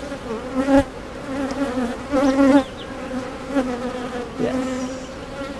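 Honey bees buzzing around an open hive: a steady hum of many wings, swelling a few times as single bees fly close past with a wavering pitch.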